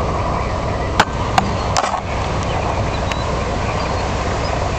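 Gusty wind buffeting the microphone as a steady, rumbling roar, with a few sharp clicks in the first three seconds.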